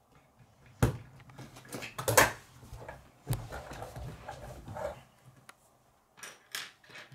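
Plastic K'nex pieces clicking and rattling as they are handled, with several sharp knocks of the plastic model against a wooden table; the loudest knock comes about two seconds in.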